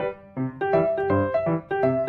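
Background piano music: a melody of separate notes over lower bass notes.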